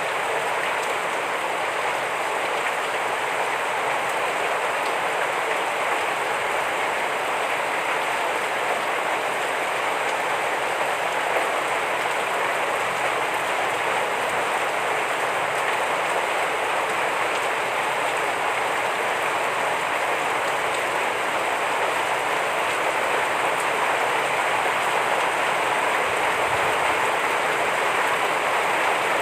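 Heavy rain falling steadily, an even dense hiss with no distinct drops or changes.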